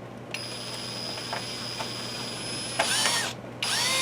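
Cordless drill-driver driving a small screw into the UPS battery keeper bracket: a steady high motor whine for a couple of seconds, then two short, louder bursts as the motor speeds up and slows down.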